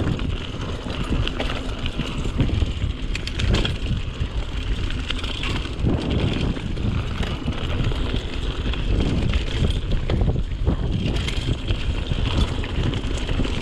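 Mountain bike riding down a stony trail: tyres rolling over loose rock with many small rattles and clicks from the bike, under steady wind rumble on the camera microphone.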